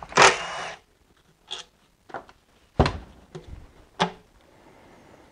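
A red cordless driver runs for under a second, backing a Torx screw out of a plastic intake manifold. Then come about five short, sharp clicks and knocks of the screw, tool and plastic parts being handled.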